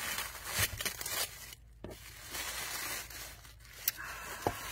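Tissue paper rustling and crinkling as gift wrapping is pulled open by hand, with a few light knocks.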